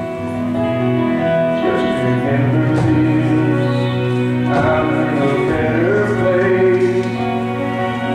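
A song playing: a singer's held notes over sustained instrumental accompaniment.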